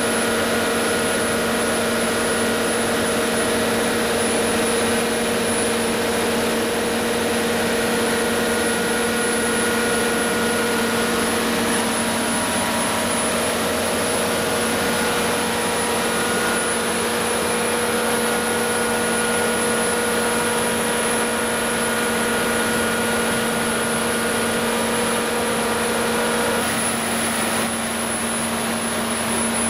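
300 kW Generac standby diesel generator set running steadily at its rated 1800 rpm, a constant engine drone with a hum and a faint high whine. Near the end one of the hum tones drops out and the drone eases slightly.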